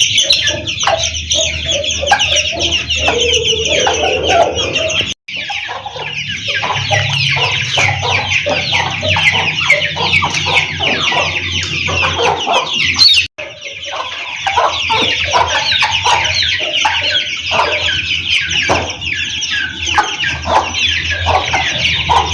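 A brood of Aseel chicks peeping constantly in a dense chorus of high chirps, with a hen clucking among them.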